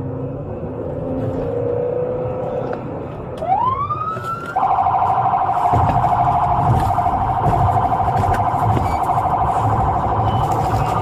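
Police siren heard from inside the patrol car over the engine's rumble: a short rising wail about three and a half seconds in, then from about four and a half seconds a louder steady siren tone that pulses rapidly.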